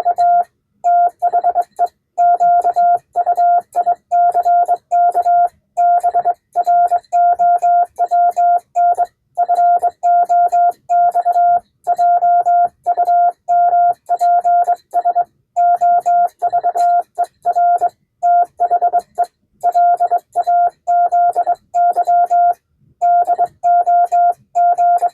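Morse code sent on a 1922 Vibroplex Martin Junior semi-automatic key (bug), heard as a steady mid-pitched CW sidetone keyed on and off in a fast run of short dits and longer dahs, with brief pauses between characters and words.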